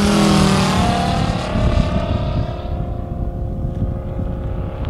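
Engine and propeller of a 1/3-scale radio-controlled Mitsubishi A6M Zero model flying past overhead: a steady drone that drops in pitch as it passes, then grows duller as the plane flies away.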